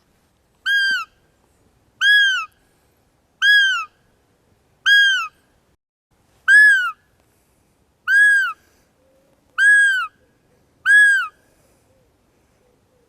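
A bird gives eight clear whistled calls, each rising and then falling in pitch, spaced about one and a half seconds apart.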